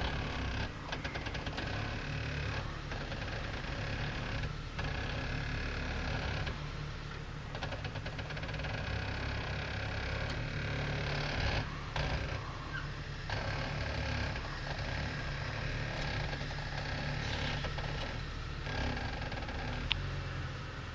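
Jeep Cherokee XJ engine running at low revs as the Jeep crawls up a rutted dirt trail, a steady low rumble with scattered clicks.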